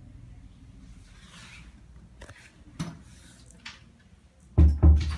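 Handling noise from a handheld camera: a few light clicks, then two loud, dull knocks in quick succession near the end, over a low steady hum.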